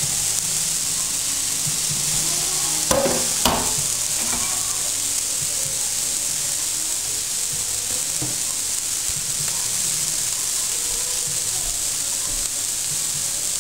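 Food sizzling steadily in a hot pan, with two short knocks of a utensil about three seconds in.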